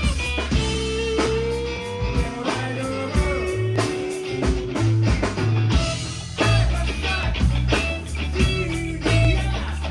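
Rock band playing: an electric guitar lead holds long notes that bend in pitch, over bass and drums.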